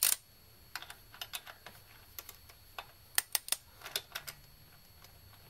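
Torque wrench ratchet clicking in short, irregular runs as it is worked on a GM 3.6 LFX V6 fuel rail bolt that is being tightened toward its torque spec. There is a sharp click at the start, and the clicks stop about four seconds in.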